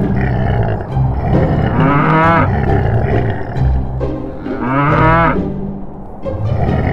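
Two wavering cow moos, one about two seconds in and another about five seconds in, laid over background music with a steady low beat.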